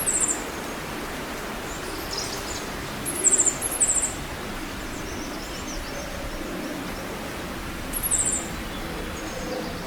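Steady outdoor nature ambience, a constant hiss, with a few very short, high-pitched chirping trills, four of them: one right at the start, two close together a little over three seconds in, and one about eight seconds in.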